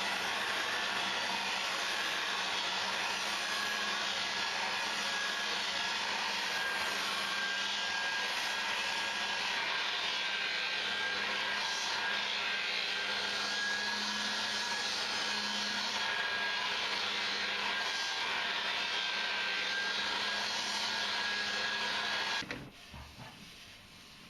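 An electric motor runs steadily with a thin high whine, then cuts off suddenly about 22 seconds in.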